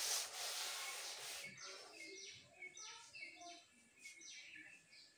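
A chalkboard duster wiping a blackboard, a brushing hiss for about a second and a half. Then a small bird calls a series of short, high, falling chirps.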